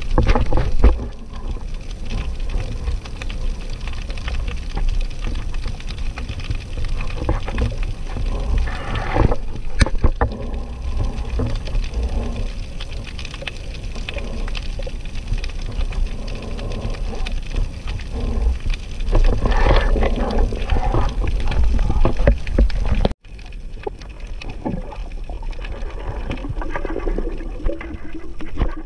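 Underwater noise recorded on a diving camera: a steady low rumble of water and the diver's movement, with swells of louder sloshing. There is a sharp click about ten seconds in, and the sound cuts out abruptly for a moment about 23 seconds in.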